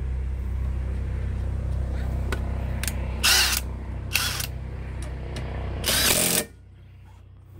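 Nissan Qashqai windscreen wiper motor and newly fitted wiper linkage running as the wipers are tested after adjustment: a steady mechanical hum with three louder bursts as the blades sweep. It stops suddenly about six and a half seconds in.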